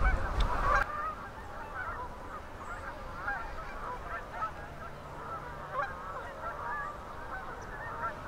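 A large flock of tundra swans and Canada geese calling continuously from the water: many overlapping honks and hoots at a distance. Wind buffets the microphone with a low rumble for the first second.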